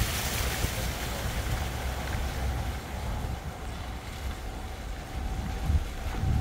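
Low, uneven rumble of a moving vehicle, with wind buffeting the microphone and a faint steady hum. The hiss fades about halfway through.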